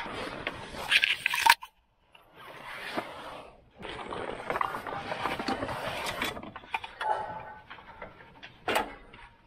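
Gear being handled in a pickup truck bed: plastic crates and a backpack rustling, scraping and knocking in uneven bursts. The sound cuts off suddenly about one and a half seconds in. A sharp click comes near the end as the bed cover's handle is worked.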